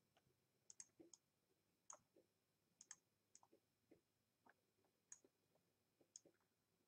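Very faint computer mouse clicks, irregular, about one or two a second.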